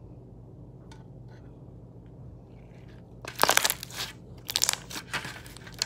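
Beaded slime being squished and pressed by hand, giving crackling, popping noises in several bursts from about halfway in.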